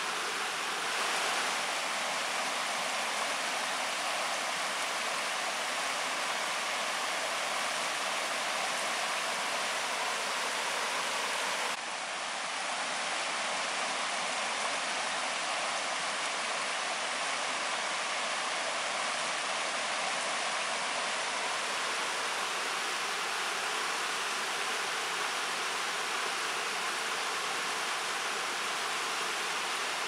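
Shallow river riffling over a rocky bed: a steady rush and babble of flowing water.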